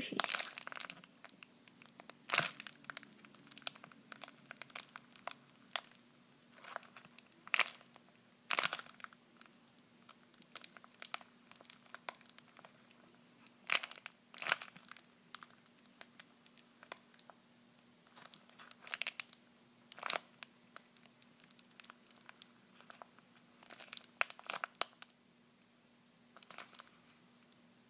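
Clear plastic bag crinkling in irregular bursts as the soft foam squishy toy sealed inside it is squeezed and turned in the hands. A faint steady low hum runs underneath.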